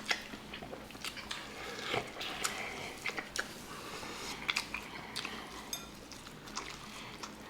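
Chewing and eating seafood gumbo, with many small irregular clicks and smacks.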